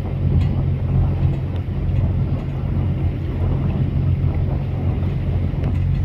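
Steady low boat-engine rumble mixed with wind buffeting the microphone.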